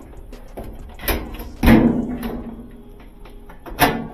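Sheet-metal dryer cabinet and console panel knocking and clanking as they are handled during disassembly: three knocks, the loudest about halfway through with a short metallic ring.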